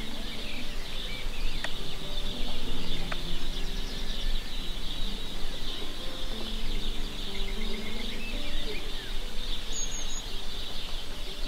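Outdoor village ambience: a steady chatter of small birds chirping, over a murmur of distant voices.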